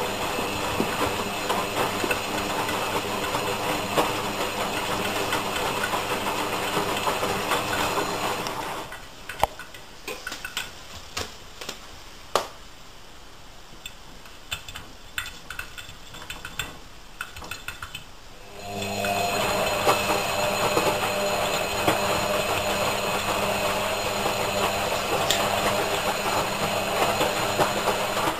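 Front-loading washing machine tumbling a load. The drum motor runs with a steady hum for about eight seconds, stops for about ten seconds with only scattered light clicks and knocks, then starts up again.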